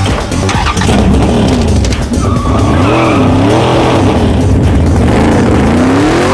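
Supercharged V8 of a 1970 Dodge Charger revving up and down repeatedly as the car pulls away, with tyres squealing.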